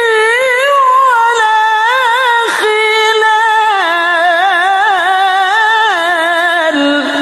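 A man reciting the Quran in the melodic tilawah style, holding long high notes with rapid ornamental trills. He takes a quick breath about two and a half seconds in, and the line steps down to lower notes in the second half.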